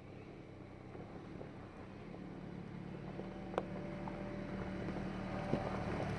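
Nissan Patrol GU four-wheel drive's engine running at steady low revs as it crawls over loose rock, getting steadily louder as it approaches. Rocks crunch and knock under the tyres, with a sharp knock about three and a half seconds in.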